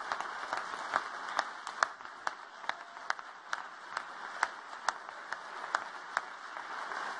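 Audience applause, a steady wash of many hands clapping, with one person's claps standing out sharply and evenly a little over two times a second.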